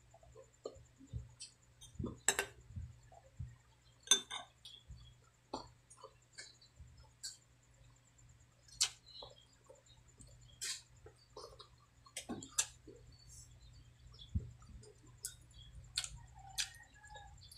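Close-up eating sounds of a person chewing braised pork trotter: irregular mouth clicks, lip smacks and chewing noises, a few of them sharper and louder, over a faint steady low hum.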